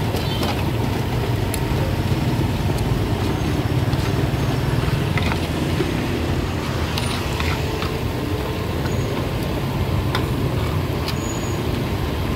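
Busy street-market background: a steady low rumble of passing traffic, with a few light clicks and clinks scattered through it.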